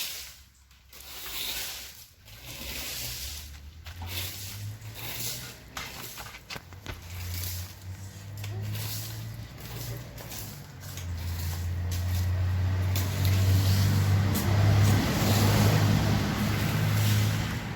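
A low steady rumble under a rough, wind-like hiss, with a few scattered knocks in the first seconds; it grows louder about eleven seconds in.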